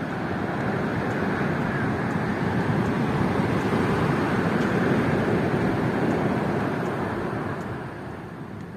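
A motor vehicle passing by: a steady rushing engine and tyre noise that builds, is loudest about halfway through, and fades away near the end.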